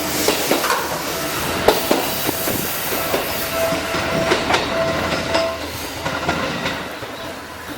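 Seibu Tamagawa Line new 101 series electric train running into the station, its wheels clacking over the rail joints. A steady wheel squeal is heard for a couple of seconds mid-way, and the train sound eases toward the end.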